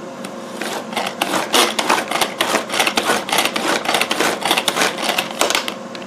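Pull-cord food chopper being worked with quick repeated pulls, its blades spinning and rattling through onion at each stroke. This makes a fast run of rasping clatters that starts about half a second in and stops just before the end.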